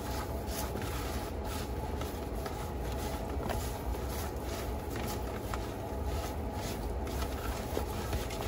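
Raw seasoned chicken wings being tossed by a gloved hand in a bowl: soft, irregular squishing and rubbing over a steady low hum.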